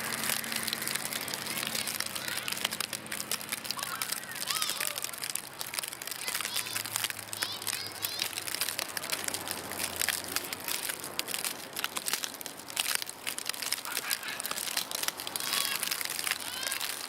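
Steady crackling and crunching close to the microphone, with faint voices in the background.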